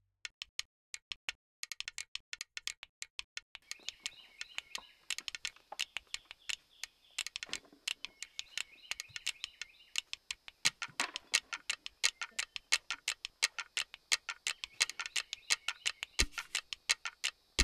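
Rapid, irregular ticking clicks, several a second, with birds singing in the woods from a few seconds in.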